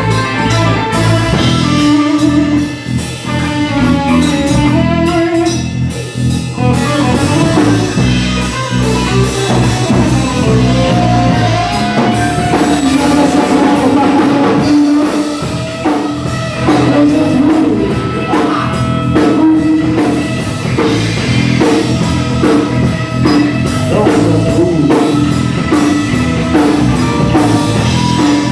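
Rock and roll band playing a boogie live, with a drum kit and guitar over a steady beat; the sound grows fuller about six seconds in.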